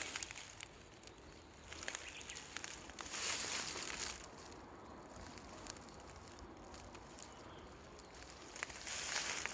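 Rustling in short bursts of about a second, three times, with light clicks and taps in between.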